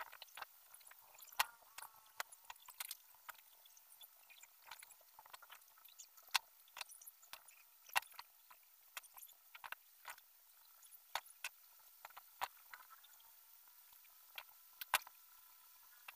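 Irregular light clicks and taps from the black rods of a bird-cage frame being handled and fitted by hand, with a few sharper ticks about a second in, near the middle and near the end.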